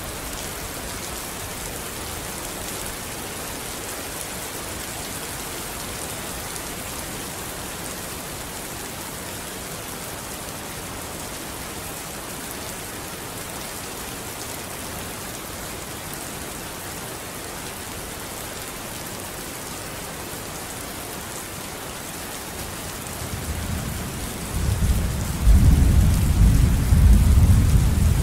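Steady hiss of monsoon rain. A deep rumble swells in about 23 seconds in and is loud near the end.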